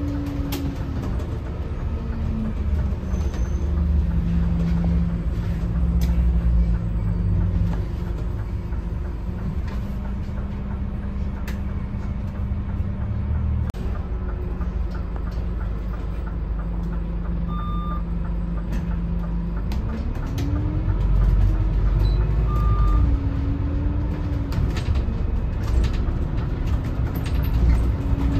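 Scania DC09 five-cylinder diesel engine of a Scania K280CB bus slowing down and then running steadily at low revs while stopped. Two short high beeps sound, then the engine revs up as the bus pulls away, with a brief dip in revs for a gear change.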